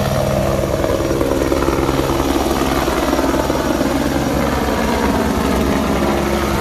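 Firefighting aircraft running, a steady low drone with a fast pulsing chop from its rotor or propellers.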